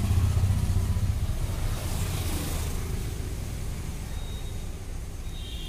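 Low engine rumble of a passing motor vehicle, loudest at first and slowly fading away.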